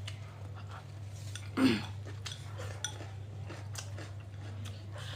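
Light clinks and taps of spoons and bowls over a steady low hum. One short louder sound comes about a second and a half in.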